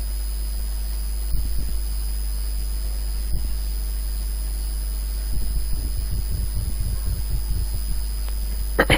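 Steady low electrical hum with a faint high whine, broken by a few soft low bumps, most of them clustered about five to eight seconds in.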